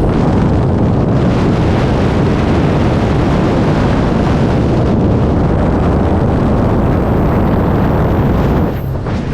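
Loud, steady wind rushing over a camera microphone during skydiving freefall. It eases briefly near the end.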